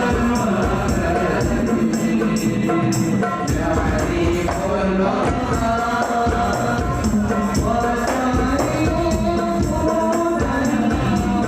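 A shalawat group singing together in devotional chorus. Rebana frame drums with jingles keep a steady beat underneath.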